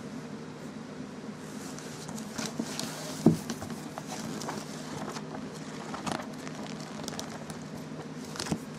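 Book pages being flipped and handled by hand: dry paper rustles and flicks, with one sharper knock about three seconds in, over a steady low hum.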